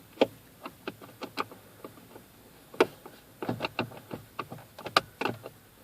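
Irregular clicks and light knocks from a screwdriver driving screws back into a plastic steering column casing, coming in small clusters.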